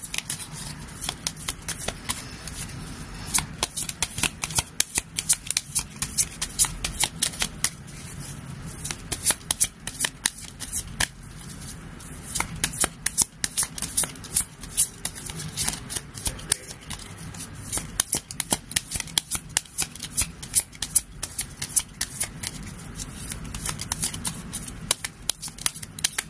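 A deck of Lenormand cards being shuffled by hand: a long, irregular run of quick papery card slaps and flicks.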